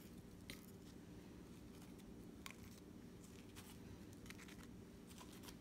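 Near silence: quiet room tone with a few faint, soft clicks.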